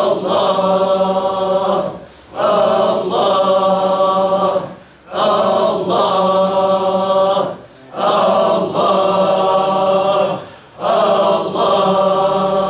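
A circle of men chanting the divine name 'Allah' together in Sufi dhikr. Each call is held on a steady pitch for about two seconds, with a short breath pause between calls, about five times in a slow, even rhythm.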